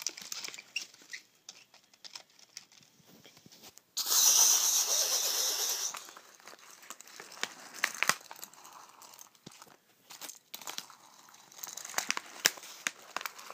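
Handling noise as a small die-cast toy engine is pushed by hand along a paper track on a bedsheet: scattered light clicks and rustling, with one loud two-second rustling hiss about four seconds in.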